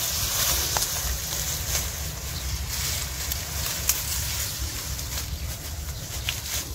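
Wind buffeting the microphone as a fluttering low rumble, over a rustle of tall grass with a few sharp ticks.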